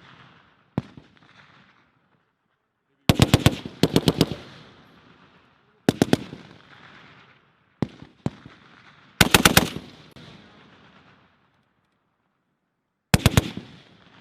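M2 .50-calibre heavy machine gun firing short bursts of a few rounds each, with a couple of single shots in between. Each burst is followed by an echo that dies away over about a second.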